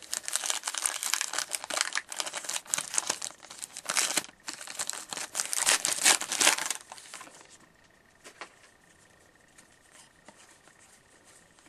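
A hockey card pack's wrapper being torn open and crinkled for about seven seconds, then a few faint ticks as the cards are handled.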